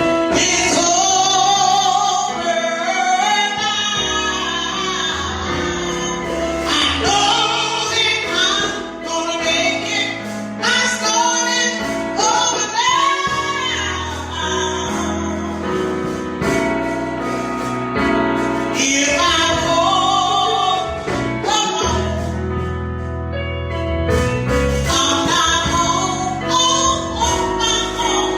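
Gospel song with a woman's voice singing long, bending held notes over instrumental accompaniment.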